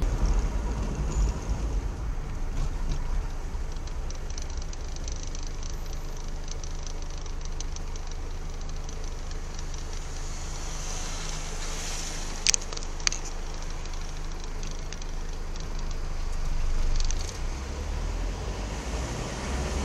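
Steady low rumble of a vehicle's engine and road noise from inside the cab as it slows to a crawl, with two sharp clicks about twelve and a half seconds in.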